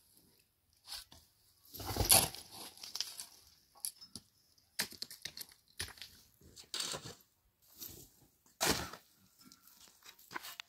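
A long-handled tool scraping and sweeping stony, dusty ground in irregular rasping strokes, one every second or two. The loudest strokes come about two seconds in and again about nine seconds in.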